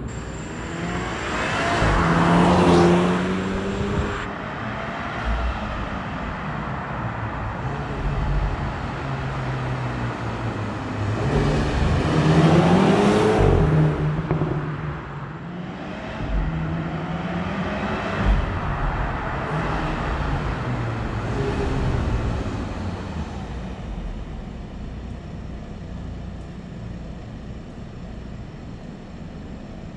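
BMW G20 330i's turbocharged 2.0-litre four-cylinder on its stock exhaust, accelerating hard with the engine note rising and dropping back at each gear change. It is loudest as it passes the camera about two seconds in and again about halfway through, with shorter pulls a few seconds later. Toward the end the engine settles to a lower, quieter note.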